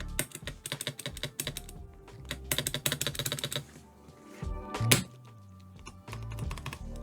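GMK plastic keycaps being pressed onto mechanical keyboard switches: quick runs of sharp clicks, densest about halfway through, with one louder knock about five seconds in. Background music plays underneath.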